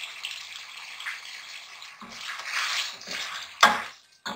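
Chicken in tomato-chilli gravy sizzling in a steel pot while a wooden spoon stirs it; the sizzle swells about two seconds in. Near the end comes a single sharp knock of the spoon against the pot.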